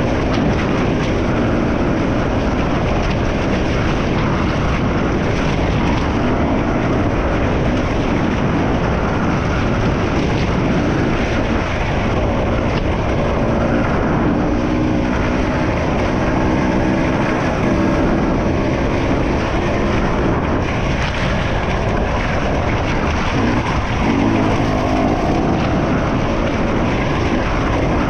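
Off-road enduro motorcycle engine running hard, its revs rising and falling repeatedly as the bike rides a muddy track, with wind noise and splashing underneath.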